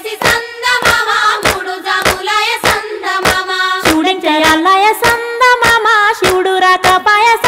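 Women singing a Telugu Bathukamma folk song to steady hand-clapping, about three claps a second.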